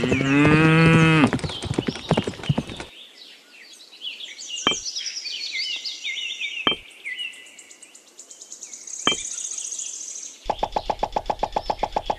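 Animal sound effects: a horse whinnies for about a second at the start, then birds chirp, with a few sharp knocks among the chirps. Near the end a fast, even pulsing sound sets in.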